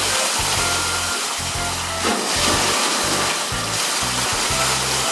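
Steady rushing and splashing of water in a polar bear's pool, with a heavier surge of splashing about two seconds in as the bear plunges under.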